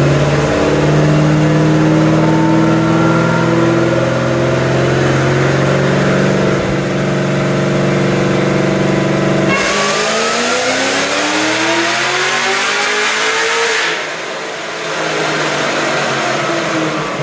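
Race car engine running on a chassis dynamometer. It holds a steady note for about nine seconds, then rises sharply in pitch for about four seconds as it revs up, and falls away after the throttle closes near the end.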